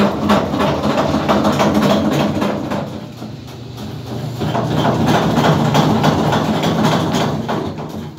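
Samsung front-loading washing machine in its spin cycle, the drum knocking and clattering rapidly over the motor's hum, easing off briefly about three seconds in and then building again. The violent shaking is the sign of a damaged suspension kit, which makes the machine stop its spin.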